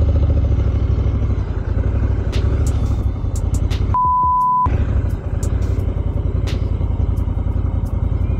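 Motorcycle engine running under way on a sandy dirt track, with wind rumble on the microphone and scattered sharp clicks. About four seconds in, a steady high bleep tone replaces everything for under a second, like a censor bleep.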